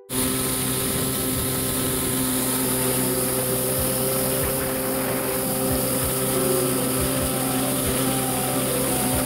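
Kawasaki 650SX stand-up jet ski's two-stroke twin engine running at a steady throttle under way, with a hiss of water spray off the hull.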